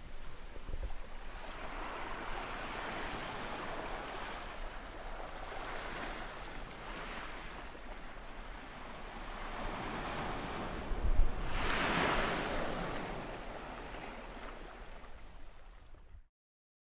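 Rushing sound of ocean waves washing in, swelling and easing, loudest about eleven seconds in, then cutting off abruptly just before the end.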